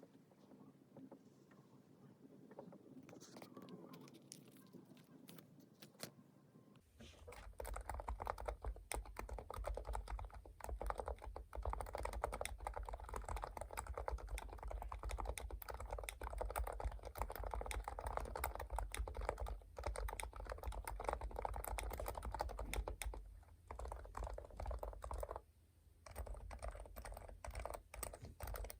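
Fast typing on a Leopold FC660C's Topre electrostatic-capacitive switches, whose keycaps are weighted inside with lead tape, on a sound-absorbing pad. The typing starts about seven seconds in after a few faint clicks and pauses briefly near the end.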